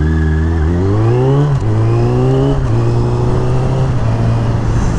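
Suzuki motorcycle engine pulling away under acceleration. It rises in pitch, then shifts up twice, about a second and a half in and again near the middle, and settles into a steady cruise.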